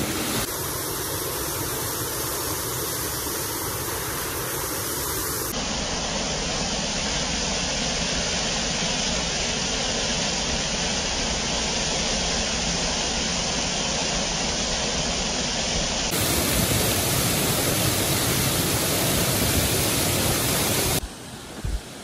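Waterfall: water falling over rocks, heard close up as a loud, steady rush. It changes abruptly in tone a few times, and about a second before the end it drops suddenly to a much quieter background.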